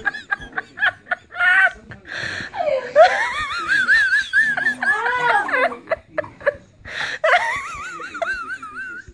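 A person laughing hard in high-pitched, wavering fits, with short gaps for breath between them.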